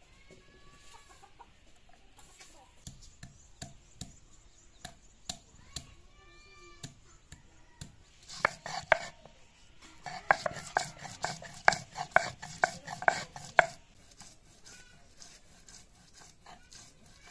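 Garlic and ginger being crushed with a hand-held stone on a flat stone grinding slab: scattered sharp knocks at first, then from about eight seconds in a fast run of sharp strikes, about four a second, lasting some five seconds.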